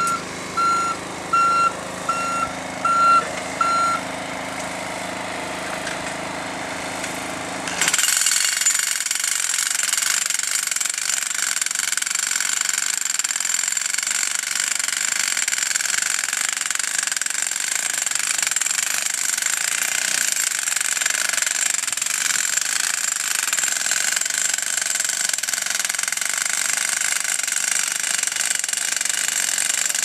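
A truck's reversing beeper pulses about twice a second over its engine for the first few seconds. After an abrupt change about eight seconds in, jackhammers make a steady, dense rattling as they drive steel fence posts into the ground.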